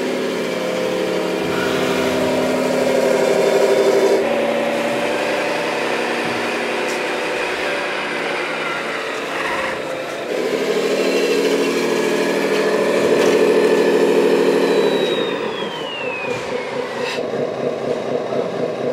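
Radio-controlled model vehicles running, heard as a steady mechanical hum and whine that changes abruptly several times where the shots change, with a high whine falling in pitch near the end.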